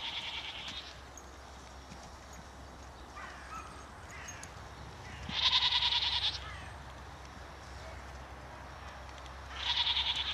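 Young horses whinnying. There is a high call at the start, a louder one about five seconds in and another near the end, with a fainter call between the first two.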